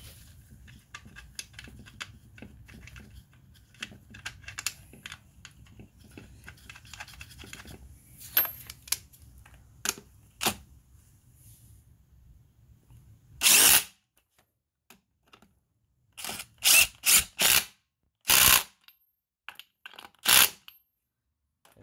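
Cordless power driver with a socket running bolts on a Honda Odyssey engine mount in short bursts: one burst about halfway through, a quick cluster of four a few seconds later, then two more single bursts. Before the bursts there are faint clicks of metal parts being handled.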